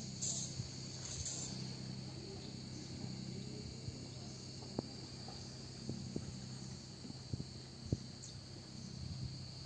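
Cicadas shrilling in a steady, unbroken chorus, with a few faint scattered clicks and knocks.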